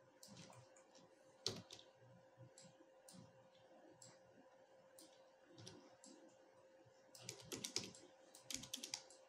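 Faint clicks of a computer keyboard and mouse: scattered single clicks, then two quick runs of clicks in the last two seconds, over a faint steady hum.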